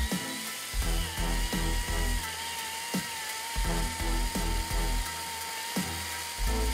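Ryobi cordless battery chainsaw running and cutting through a wooden post, its motor giving a steady high whine that drops slightly in pitch about a second in as the chain bites into the wood.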